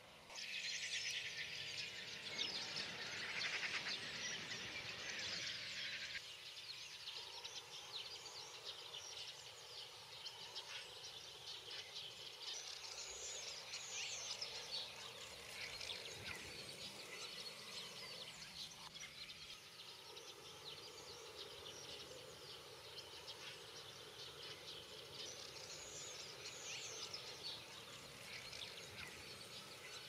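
A mixed flock of common starlings and fieldfares chattering, a dense high-pitched twittering of many overlapping calls. Louder for the first six seconds, then a little quieter and steady.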